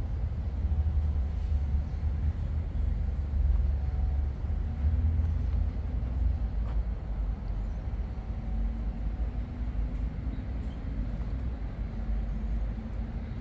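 Steady low rumble of city road traffic, with a faint engine hum from a passing vehicle in the second half.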